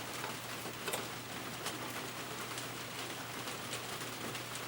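Steady even hiss with a faint constant hum underneath, and a few light clicks from small parts being handled.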